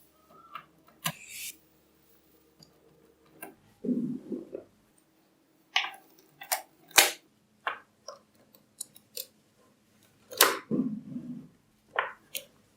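Small magnetic balls snapping together with sharp, irregularly spaced clicks, with a duller rattle of balls shifting twice, about four and eleven seconds in.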